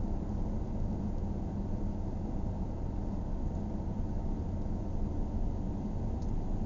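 Steady low rumble of a car's road and engine noise, heard from inside the cabin while driving.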